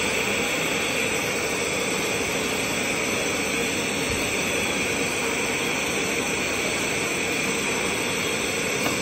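Bench lampworking torch fed by oxygen and gas cylinders, burning with a steady hiss while glass is worked in its flame.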